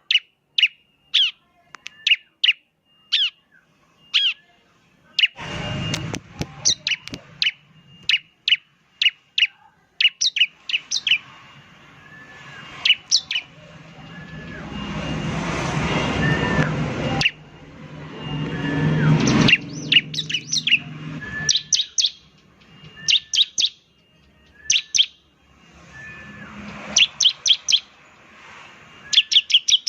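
Bar-winged prinia (ciblek) calling a long series of sharp, high notes that sweep downward, one to two a second, bunching into quick runs near the end. A rushing background noise with a low hum swells in the middle and cuts off suddenly.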